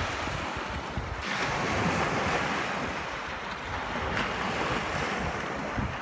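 Small waves washing over sand at the water's edge, a steady hiss that swells now and then, with wind buffeting the microphone.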